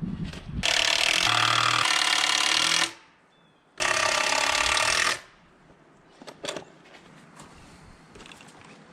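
A handheld power tool run in two bursts, the first about two seconds long and the second about a second and a half, followed by a few light knocks.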